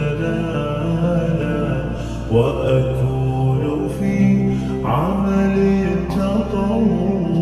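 Slowed, reverb-heavy Arabic nasheed: layered voices hold a chanted melody, with upward vocal swoops at about two and a half, five and near seven seconds in.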